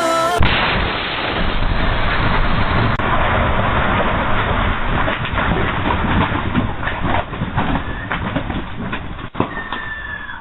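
A sudden loud explosion-like blast that cuts off music, followed by a long crackling rumble that slowly dies away.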